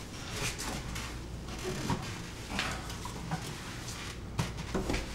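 Light handling sounds: a few soft knocks and rustles as a spirit level is picked up and set on top of a wooden chandelier beam.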